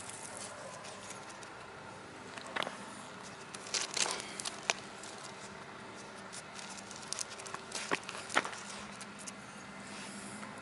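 A handful of short, scratchy clicks, bunched in two groups around the middle, over a steady faint background hiss.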